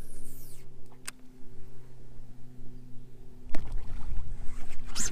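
Sit-on-top fishing kayak on the water: a short swish near the start, then a sharp knock on the hull about three and a half seconds in, followed by low rumbling. A steady low hum runs underneath.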